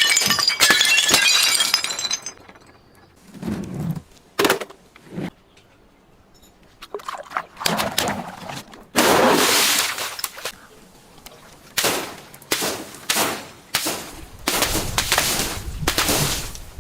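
Glass bottles breaking in a series of separate crashes and crunches, with glass tinkling in the first couple of seconds and longer crunching stretches in the second half.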